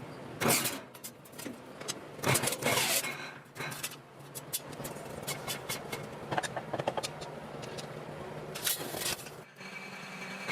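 Irregular scraping and clattering of hard objects over a steady low hum, with loud bursts about half a second in, around two to three seconds in, and near the end.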